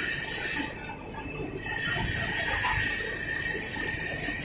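Steady industrial machinery noise with a high, steady whine on top. The whine and the overall noise dip for about a second near the start, then return.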